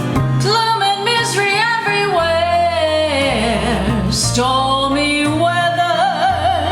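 Music: a woman singing with a wavering vibrato over instrumental backing with a steady bass line.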